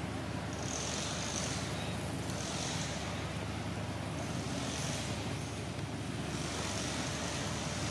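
Steady outdoor background noise with a low rumble, and a high hiss that swells and fades four times.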